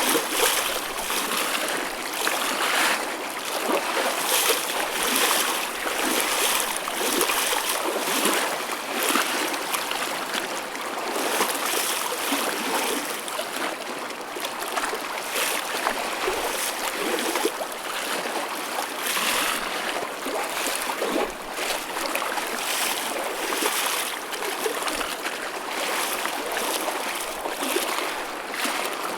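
Small waves lapping and splashing: an uneven wash of water that swells and eases every second or two, with little deep rumble.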